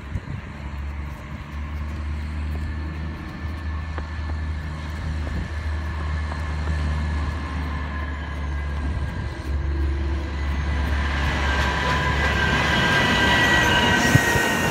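A side-loading garbage truck's diesel engine running as the truck drives up, growing louder as it comes close and passes. In the last few seconds a high-pitched whine at several pitches rises over the engine.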